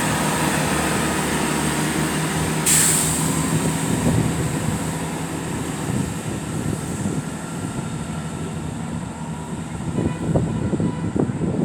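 Diesel train running with a steady engine hum, with a short hiss of air about three seconds in and some irregular knocking near the end.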